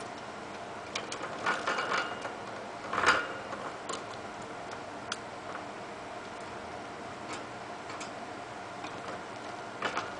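A budgerigar bathing in a dish of wet leafy greens: rustling wing flutters and leaf splashes in bursts, the loudest about three seconds in, then only scattered small clicks and taps.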